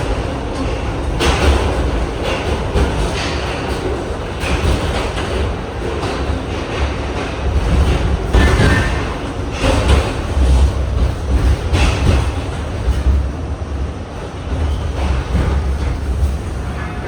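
R68 subway train running on the rails: a heavy low rumble with irregular clacks as the wheels cross rail joints.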